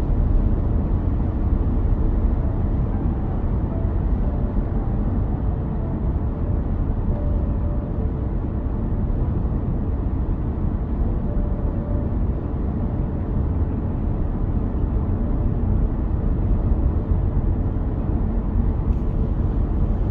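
Steady rumble of tyre and wind noise inside a car's cabin while it cruises at motorway speed.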